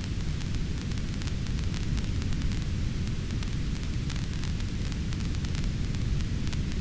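Fireplace fire crackling: a steady low rumble with many small, quick pops and crackles scattered throughout.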